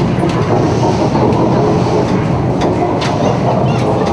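Staged earthquake effect in a mock subway station: a continuous loud rumble with a train running through it, broken by several sharp metal clanks and crashes.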